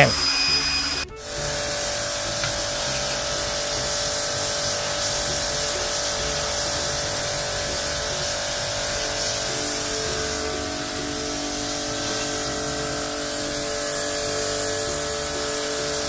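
Handheld electric blower running steadily with a motor whine, blowing rinse water off freshly washed air-conditioner parts to dry them. It breaks off briefly about a second in, then runs on.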